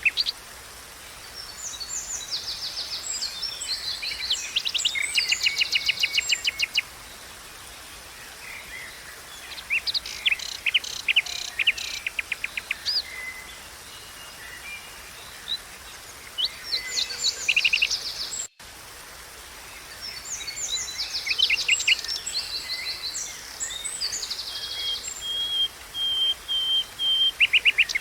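Songbirds singing in repeated bursts of rapid trills and chirps, phrase after phrase with short pauses between, over a steady faint background hiss.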